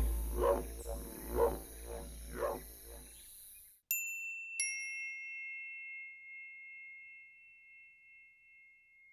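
Four short pitched sounds, about one a second, over steady hiss and hum; then, after a break, two bright chime strikes about a second apart, each ringing on and slowly dying away.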